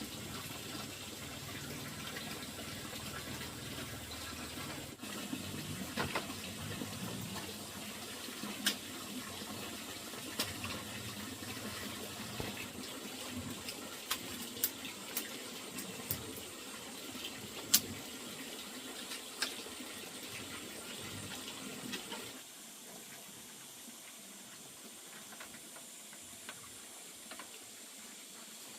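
Water running or pouring, with sharp clicks and knocks now and then. The running stops about three-quarters of the way through, leaving a quieter hiss.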